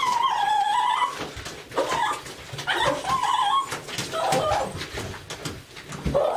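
Lhasa Apso dog whining and crying in a series of drawn-out, wavering whimpers, the longest right at the start: distress at being bathed.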